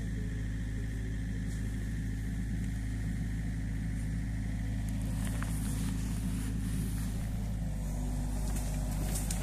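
Excavator's diesel engine idling steadily, a low even hum. From about halfway on, light rustling and crackling joins it.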